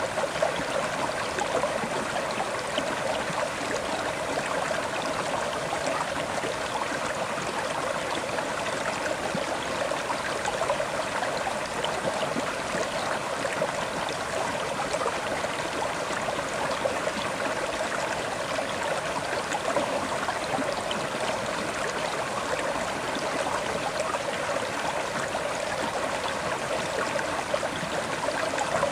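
River water flowing and rushing over stones: a steady, even burble and splash of a fast-moving stream.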